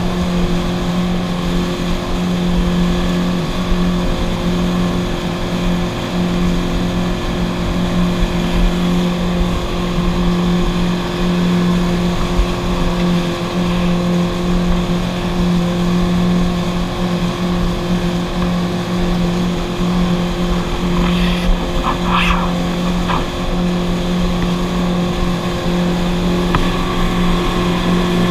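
Motorboat engine running steadily at speed while towing a tube, a constant drone over the rush of water and wind. A brief burst of higher sound about three quarters of the way through.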